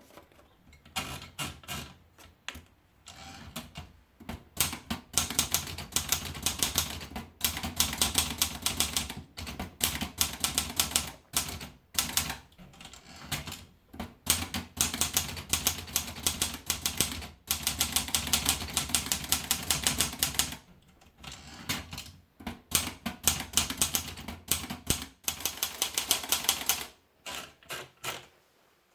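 Olivetti Lettera 32 manual portable typewriter being typed on: fast runs of sharp keystrokes in bursts separated by brief pauses, stopping about a second before the end.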